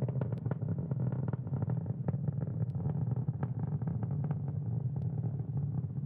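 Falcon 9 first stage in powered ascent shortly after max Q, heard through its onboard camera: a steady low rumble from its nine Merlin engines with frequent crackling clicks.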